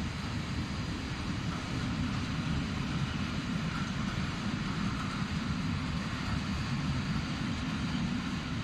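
Open-top freight wagons of a long freight train rolling past, a steady low rumble of steel wheels on the rails.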